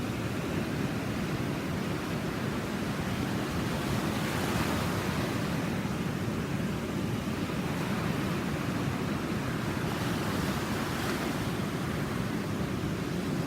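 Ocean surf breaking in the heavy swell left by a passing typhoon: a continuous wash and rumble, with two waves crashing louder, about a third of the way in and again past three-quarters.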